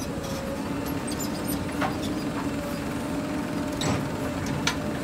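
Diesel engine of a JCB 3DX backhoe loader running steadily at work, with a few sharp metal knocks about two, four and nearly five seconds in.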